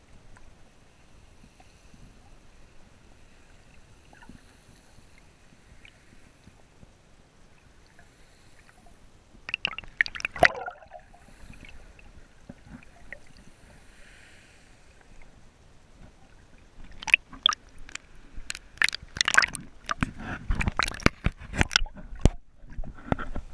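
Seawater heard by a camera just below the surface: a low muffled wash, broken by a short burst of sloshing and gurgling about ten seconds in and a longer run of splashing and knocks near the end.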